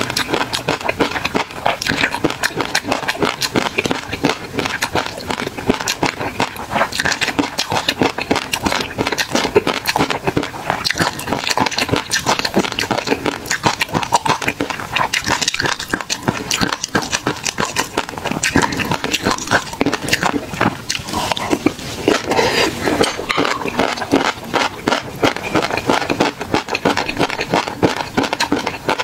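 Close-miked chewing of a mouthful of tobiko (flying fish roe) with sea grapes and sauce: a dense, irregular stream of tiny popping clicks as the eggs burst, mixed with wet mouth sounds.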